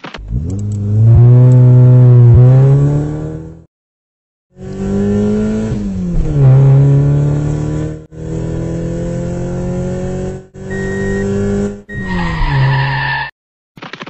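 Car engine revving, laid in as several spliced clips with abrupt cuts and short silent gaps; the pitch climbs and then falls sharply a few times, like gear changes.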